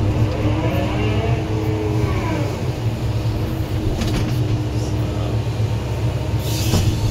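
Volvo EC160 excavator's diesel engine running steadily, heard from inside the cab, with the hydraulics whining up and down in pitch as the boom and bucket move.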